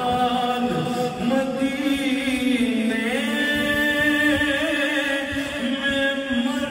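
A man singing a naat, a devotional Urdu poem, in a long melodic line of held notes that waver and bend in ornaments.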